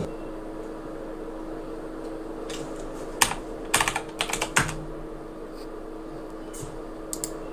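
Computer keyboard keys clicking in a few short clusters, the busiest run in the middle, over a steady low hum.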